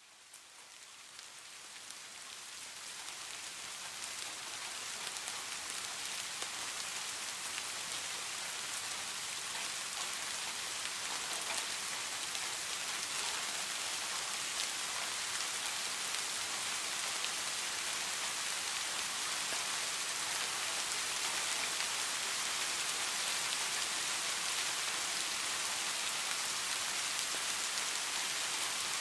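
Steady rain falling, a dense, even hiss that fades in from quiet over the first few seconds and then holds level.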